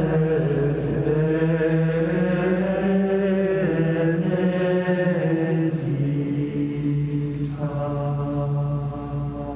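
Theme music of chant-style singing: long held notes that move slowly from pitch to pitch.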